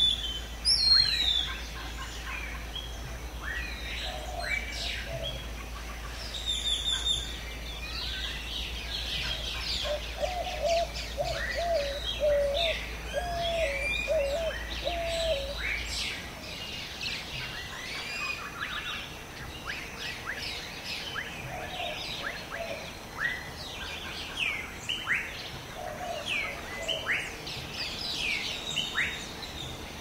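Forest ambience: many birds chirping and calling at once in a dense chorus, with a lower bird call repeated about six times around a third of the way in. A faint low hum under it stops about halfway through.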